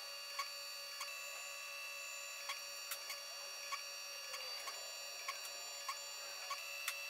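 Pocket NC 5-axis desktop CNC machine milling wood, sped up tenfold: a steady high whine of several tones from the spindle and axis motors, with a sharp tick about every half second.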